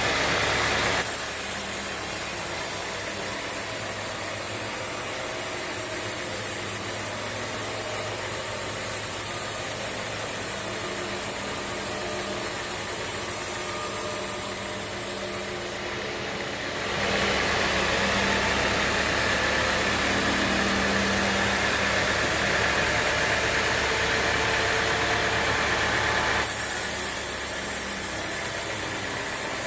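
Sawmill machinery running steadily, a continuous engine-like drone and hiss. The sound shifts abruptly about a second in, again around the middle and near the end.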